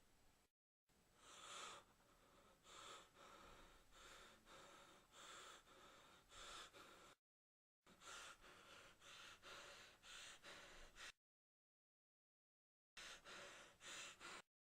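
Faint, quick breaths from a person, roughly one a second, cutting out abruptly to dead silence several times.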